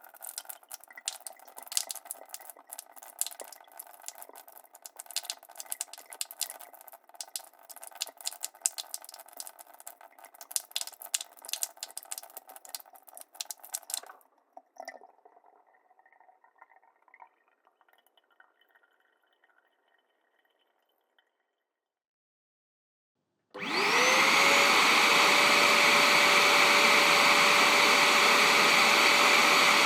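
Dense crackling with many sharp clicks over a steady hum for about fourteen seconds, which then thins out and dies away. After a short silence, an electric household appliance motor switches on with a rising whine and settles into a loud, steady rush of air.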